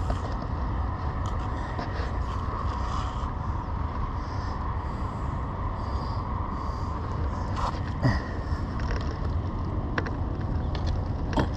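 Spinning fishing reel being cranked to retrieve line, a steady mechanical whirr over a low background rumble, with a few short clicks in the second half.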